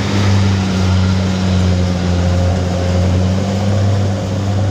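Diesel engine of a Kubota DC70 rice combine harvester running steadily at constant speed, a deep even hum.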